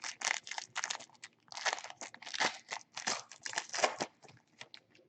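Trading-card packaging being handled and opened: a run of rapid crinkling and crunching that stops about four seconds in.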